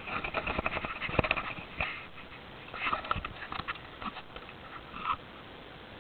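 Pet parrot chattering in short bursts, over sharp clicks and knocks from the camera being handled close to the microphone.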